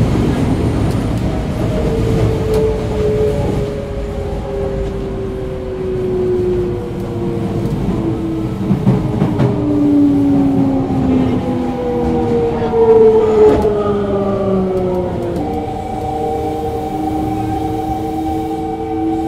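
Toei 5300 series train's Mitsubishi GTO-VVVF inverter and traction motors heard from inside the car as it slows: several whining tones glide steadily down in pitch, then a few seconds before the end they settle into a set of steady, level tones. The low running rumble of the car carries on underneath.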